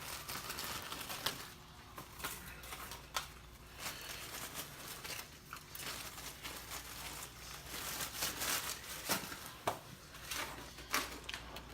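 Crackers being picked out of crinkling packaging and handled, with irregular rustling and scattered light clicks.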